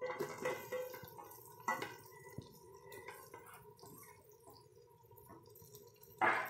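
Chopped vegetables tipped from a steel tray into an aluminium cooking pot, then a steel slotted spatula clinking and scraping against the pot as they are stirred in with the browned chicken. A louder clatter comes near the end.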